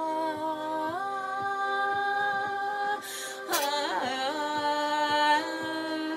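A woman singing long, wordless held notes in a deep voice. The pitch steps up about a second in. Around the middle comes a breath and a wavering slide down, before she settles on another held note.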